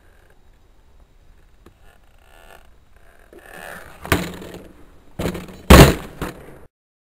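Skateboard flip trick on asphalt: a sharp tail pop about four seconds in, then the board, trucks and wheels clacking down as the rider lands, the loudest smack coming a second and a half after the pop, before the sound cuts off suddenly.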